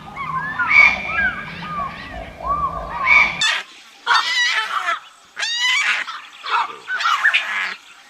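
Animal calls in two clips: short rising-and-falling bird chirps for about three seconds, then after an abrupt cut a series of about five louder, separate pitched calls.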